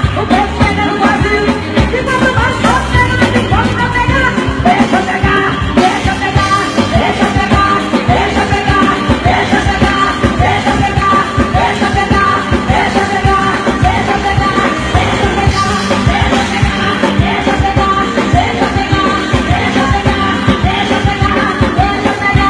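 Loud gospel worship music played live: singing over a band with a steady, driving beat and repeating melodic phrases.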